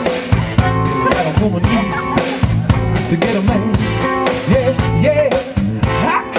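Live band playing rock music: a drum kit keeps a steady beat under electric guitar, with a singing voice over it.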